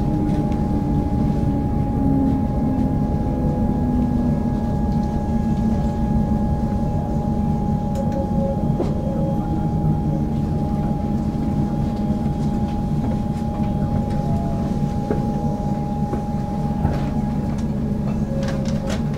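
Inside a Comeng electric suburban train braking to a stop at a station: a steady low rumble with a motor whine that falls slowly in pitch over the first few seconds, under a steady high tone.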